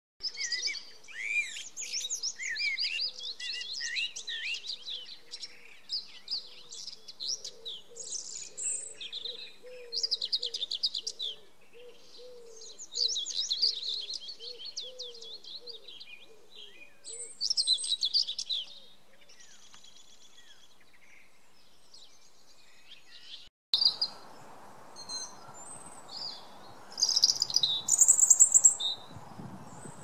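A male common blackbird sings phrase after phrase with short pauses between them. About 23 seconds in there is a cut to a European robin singing high, thin phrases over faint background noise.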